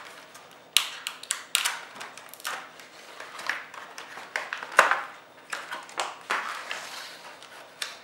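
Clear plastic blister trays of fiber optic adapters being handled and pressed by hand, giving irregular crinkling clicks and taps of thin plastic, the sharpest about five seconds in.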